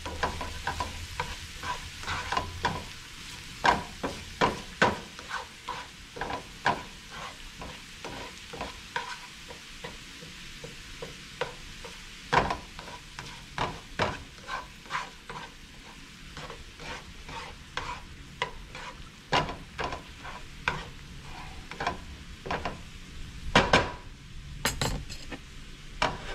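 Hot honey-lemon butter sauce sizzling softly in a skillet just after the burner is turned off, while a slotted spatula stirs and scrapes through it with repeated taps against the pan. A louder clatter near the end.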